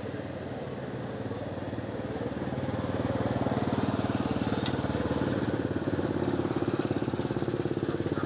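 Small motorbike engine running with a fast, even pulse, growing louder over the first few seconds and then holding steady at idle.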